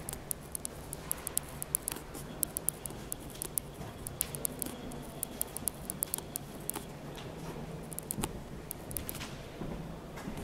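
Pen scratching on paper, writing a message in a guestbook: a long run of small, quick, irregular ticks and scratches.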